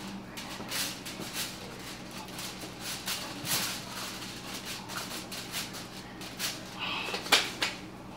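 Crinkling and rustling of foil and disposable plastic gloves as raw hamburger patties are handled, in irregular crackles that are sharpest about seven seconds in, over a faint steady low hum.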